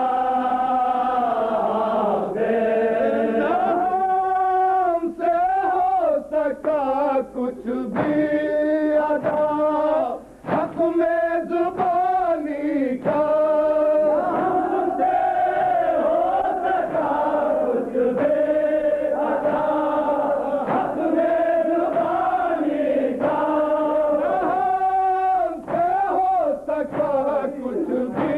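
Men's voices chanting a noha, a Shia mourning lament, in a slow sung melody with the gathered mourners chanting along, with a short break about ten seconds in.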